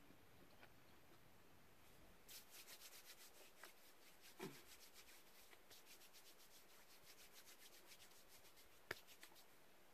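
Faint, quick rubbing of two palms against each other, a rapid run of dry scratchy strokes, with a single sharp click near the end.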